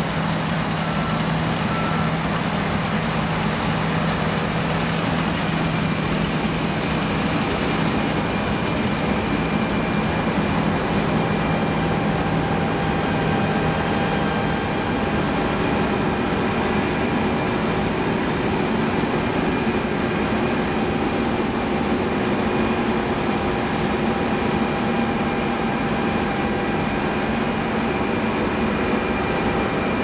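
John Deere T670i combine harvester running while cutting barley, its engine and threshing gear making a steady drone. A low hum fades out after a few seconds while higher steady whining tones come in.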